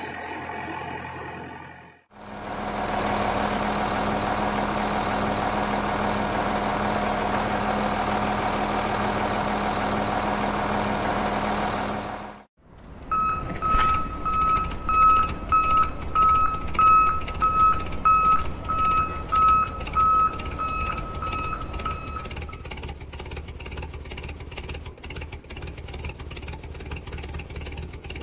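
Heavy-vehicle sound effects cut together: a steady engine drone for about ten seconds, then a reversing beeper sounding in an even rhythm, a little over once a second, for about nine seconds, then an engine running again.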